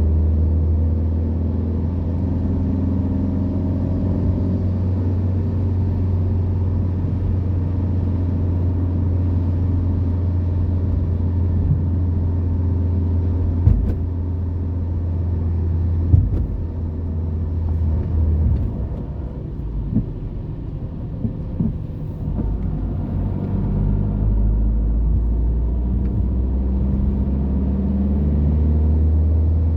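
Car running with a steady low engine drone and road noise, easing off for a few seconds about two-thirds through before building again; a couple of short knocks stand out in the middle.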